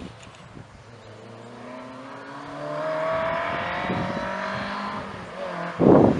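Volkswagen Golf GTI Mk1 competition car's four-cylinder engine accelerating hard up the hill toward the listener, its note climbing in pitch. It turns suddenly much louder near the end as the car comes close.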